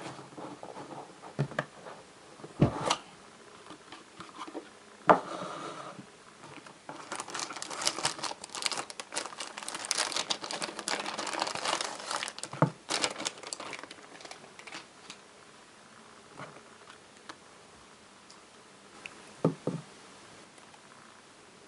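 Cardboard phone box handled and opened, with a few sharp knocks, then a thin plastic bag around a smartphone crinkling densely for several seconds as it is unwrapped, followed by quieter handling and a couple of light knocks near the end.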